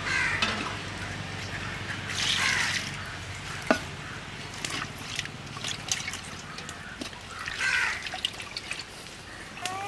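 Fish curry boiling in a large aluminium pot: bubbling with many small scattered pops and a few louder wet bursts, and one sharp knock about three and a half seconds in.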